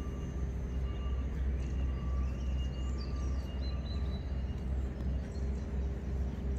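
Outdoor ambience: a steady low rumble, with faint, short bird calls repeating about every half second above it.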